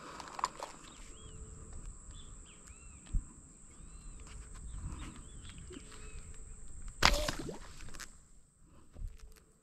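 Quiet outdoor ambience with faint, short, arching bird chirps, broken about seven seconds in by one sudden loud noise lasting about half a second.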